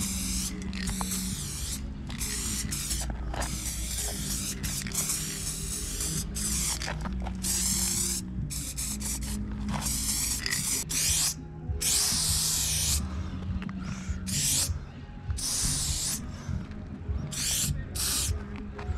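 Aerosol spray paint cans hissing in repeated bursts of one to a few seconds, starting and stopping as the nozzle is pressed and released. Low background music with held notes runs underneath.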